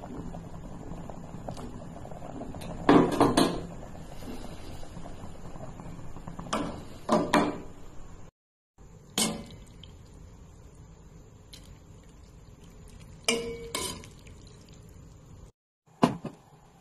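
Water boiling in a stainless steel pot, a steady hiss with a metal spoon clanking sharply against the pot several times. After a break the hiss is gone, and a few more metal knocks follow as cookware is handled on a gas stove.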